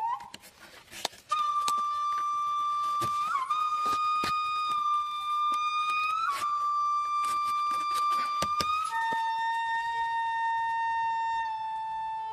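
Background music: a slow melody of long held notes, starting after a short pause and stepping down to a lower note about nine seconds in, with a few faint clicks underneath.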